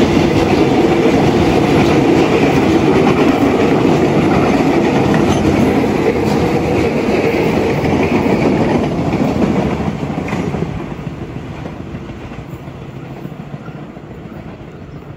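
Electric multiple-unit commuter train passing close by, its wheels running loud and steady on the rails. From about ten seconds in it fades away as the last car moves off.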